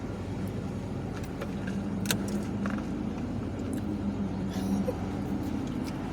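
Steady low hum of a running motor, with scattered small clicks and taps.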